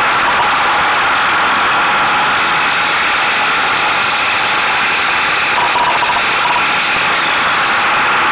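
A Buell motorcycle running steadily at speed under a loud, even rush of wind and road noise, picked up by a camera mounted on the bike's mirror stalk.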